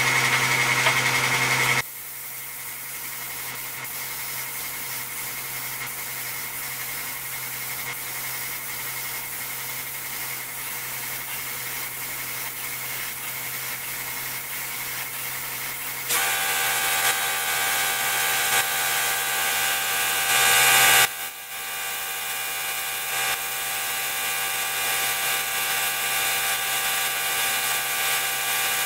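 Steady motor whine from the clear-coat spraying setup's air supply. It drops in level about two seconds in and steps up again about sixteen seconds in, with a loud hiss of air from the spray gun for about two seconds around twenty seconds in.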